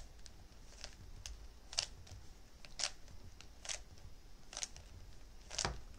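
A 3x3x3 Rubik's cube being turned layer by layer through a solving algorithm: about eight short plastic clicks as the layers snap round, roughly one a second.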